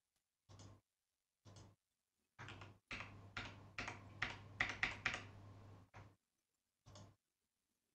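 Faint clicking and tapping of a computer keyboard and mouse. A few single bursts come first, then a dense run of taps from about two and a half to six seconds in. A low hum cuts in and out with each burst.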